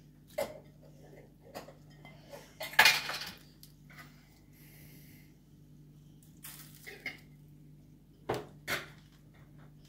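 Cauliflower florets dropped by hand into a stainless-steel pot of boiling water and picked out of a ceramic bowl: a scattering of short knocks and clinks, the loudest about three seconds in and two in quick succession near the end, over a faint low steady hum.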